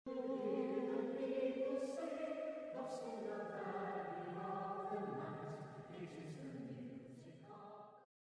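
A choir singing slow, held chords that change every second or two. It grows quieter, then cuts off suddenly near the end.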